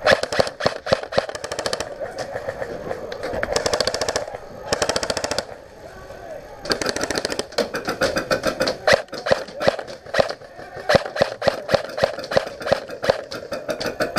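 Airsoft guns firing rapid full-auto bursts, heard as fast runs of sharp clicks and cracks, with a short lull about six seconds in.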